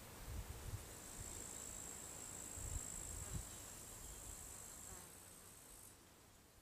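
Meadow crickets trilling: a steady, high, thin chirr that stops near the end as the recording fades out. A few soft low bumps sound underneath.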